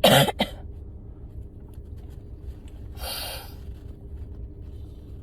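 A woman's hard sneeze from a head cold: a sudden loud burst with a quick second catch right after it. About three seconds later comes a short, hissing breath. All of it is over the steady low road rumble inside a moving car.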